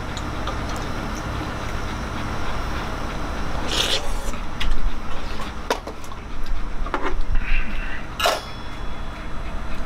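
The brass cap of an Esbit alcohol burner set down on the lit burner about eight seconds in, a sharp metallic clink with a short ring, snuffing the flame. Before it come a few small knocks and handling sounds.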